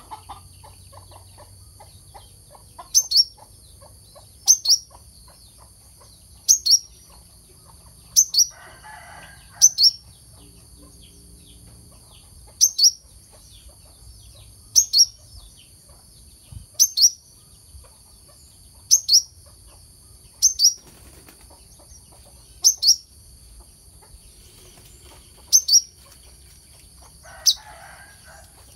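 Brown-throated sunbird giving short, sharp, high calls that sweep down in pitch, singly or in quick pairs, about every couple of seconds, over a steady high hiss.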